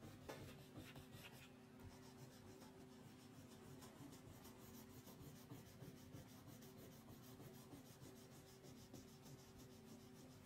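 Wax crayon rubbing on paper in quick, repeated back-and-forth colouring strokes, faint, over a low steady hum.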